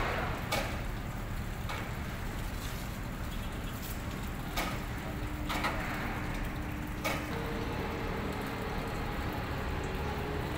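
Gantry boat hoist lifting a rigid inflatable rescue boat out of the water: a steady low mechanical rumble with a faint hum, broken by five sharp knocks.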